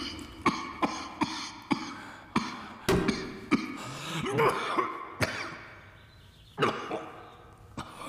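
A man's violent coughing fit: a quick run of harsh coughs about twice a second, then two more spaced coughs as it dies down. The fit brings up blood.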